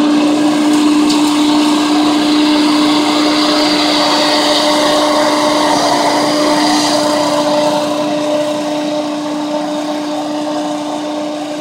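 Eliet BL450 walk-behind wheeled leaf blower running steadily at working speed: a constant engine-and-fan drone with a rush of blown air. It grows a little fainter near the end as the machine moves away.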